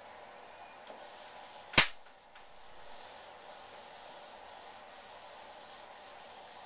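Whiteboard eraser wiping across the board in repeated back-and-forth strokes, a rubbing hiss at about two or three strokes a second. A single sharp knock comes about two seconds in.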